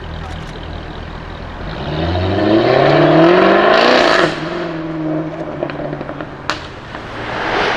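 Jaguar F-Type V8 R's supercharged 5.0-litre V8 accelerating: the engine note rises in pitch and grows loud for about two seconds, then cuts off abruptly as the throttle is lifted. A lower, steadier engine note follows, with a single sharp exhaust crack about six and a half seconds in.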